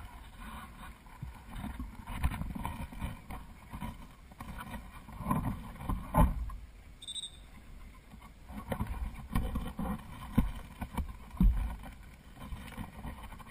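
Wind buffeting an outdoor camera microphone, an uneven low rumble that rises and falls in gusts. A sharp knock comes about six seconds in, and a brief faint high whistle shortly after.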